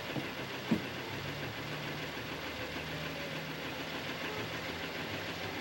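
Car engine idling steadily under the hiss of an old soundtrack, with a single short thump about a second in.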